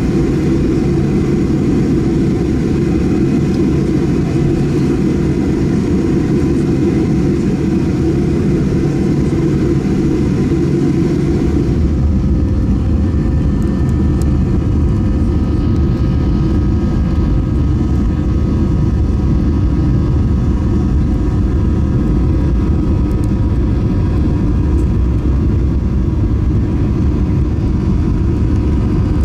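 Cabin noise of a Boeing 737-800 with its CFM56-7B engines: a steady drone and hum while taxiing, which changes abruptly about twelve seconds in to a deeper rumble as the takeoff roll begins.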